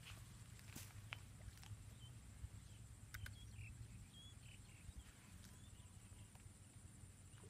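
Near silence: faint outdoor ambience with a low steady hum and a steady high-pitched whine, broken by a few faint clicks and a handful of short faint chirps a little past the middle.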